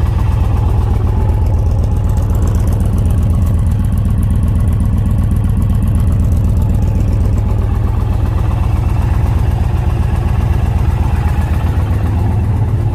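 2020 Indian Challenger's PowerPlus V-twin idling steadily through a two-into-one exhaust, with a fast, even low pulse.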